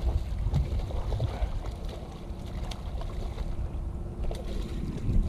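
Boat motor running steadily at trolling speed, with wind rumbling on the microphone.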